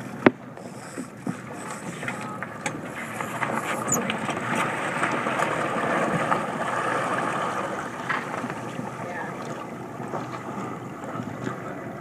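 Water rushing and splashing along a small sailing dinghy's hull as the boat is rolled hard over through a gybe, swelling to its loudest in the middle and easing off; a single sharp knock sounds just after the start.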